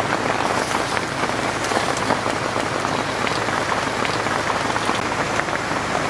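Heavy rain pattering steadily on a tarp shelter: a dense, unbroken hiss of drops with many small taps.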